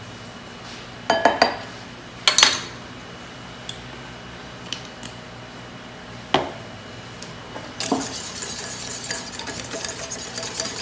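A few sharp clinks and knocks as a metal measuring spoon and a small glass bottle are handled. From about eight seconds in, a wire whisk beats egg yolks in a glass bowl: a fast, steady clatter of wire on glass.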